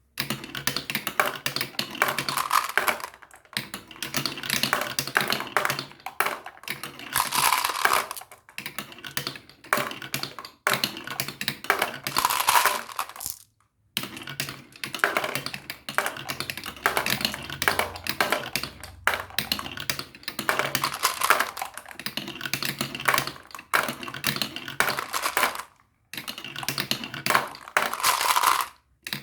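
Marbles rolling and clattering down a plastic marble run: a dense, rapid rattle of clicks, in stretches of a few seconds broken by sudden short gaps.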